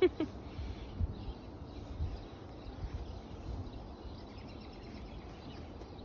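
Quiet outdoor ambience in a snowy yard: a steady low rumble with a few soft thumps about one and two seconds in. A short, sharp sound comes right at the start.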